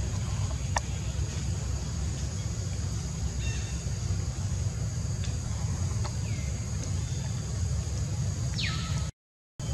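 Outdoor forest ambience: a steady low rumble under faint steady high tones, with a few short bird chirps and a click. Near the end a sharp falling call sweeps down, then the sound drops out for about half a second.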